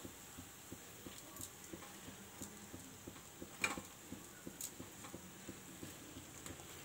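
Faint crackling and popping of a maida potato patty frying in hot oil, with a few sharper clicks about once a second.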